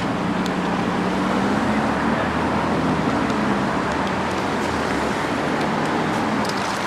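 Steady street traffic noise with a vehicle engine humming nearby, the hum easing off about five seconds in.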